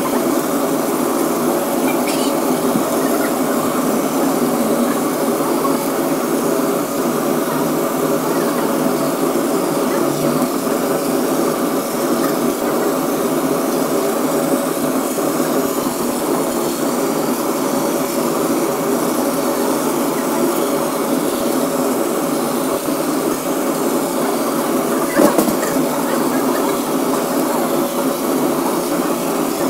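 Laser cutter running as it cuts plywood: a steady machine drone from its fans and air pump, with one short knock about 25 seconds in.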